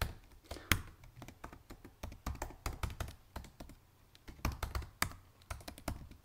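Typing on a computer keyboard: a run of irregular key clicks, with a brief pause about two thirds of the way through and an occasional harder keystroke.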